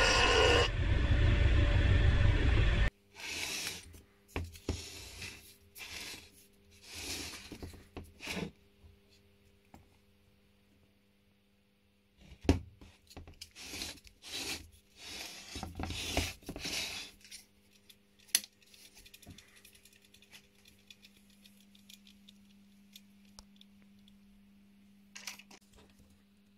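Old washing machine motor running loudly, then cut off abruptly about three seconds in. Intermittent handling noises follow: scraping, rustling and a few sharp clicks, over a faint steady hum.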